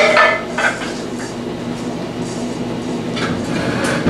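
Dishes and cooking utensils clattering and clinking in a kitchen, over a steady low hum.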